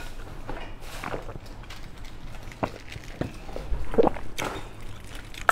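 Light handling noise: scattered small clicks and taps as a small can of chili sauce and a drinking glass are handled. It ends in a sharp click as a finger pulls at the can's ring-pull lid.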